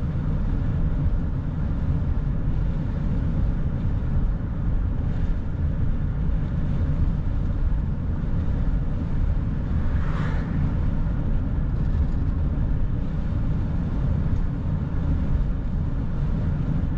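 Steady low rumble of road and engine noise from a vehicle driving at road speed, heard from inside the cab. A brief higher-pitched sound rises out of it about ten seconds in.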